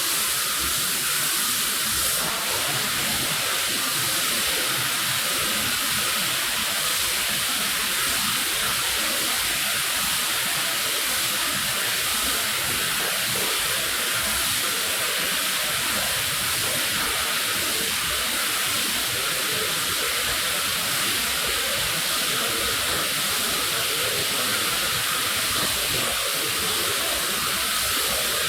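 Steady spray hissing onto a wet rug during washing, an even noise with no breaks.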